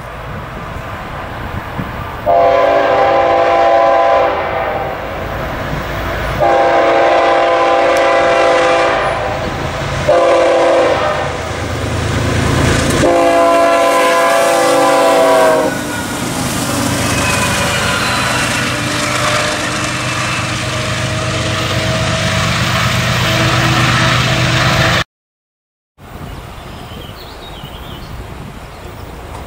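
Air horn of a Norfolk Southern GE ES44AC-series diesel locomotive sounding the grade-crossing signal: long, long, short, long, with the pitch dropping at the end of the last blast as the locomotive passes. The locomotive's diesel engine and the train's wheels on the rails follow as it runs by. After a cut about 25 seconds in, a more distant train is heard, quieter.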